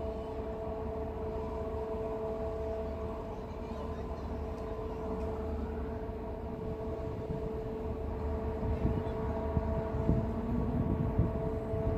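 Steady hum of ship machinery, holding two steady tones, over an uneven low rumble that swells near the end.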